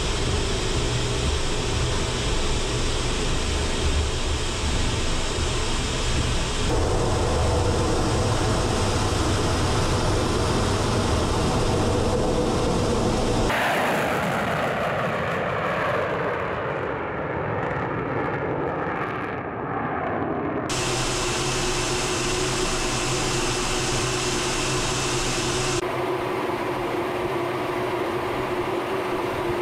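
Su-35 fighter jet engine noise, cut together from several shots, so the sound changes abruptly several times. First comes steady engine noise heard from the cockpit. About halfway through, a jet climbs away with its pitch falling as it passes. Near the end there is a steady in-flight drone with a humming tone.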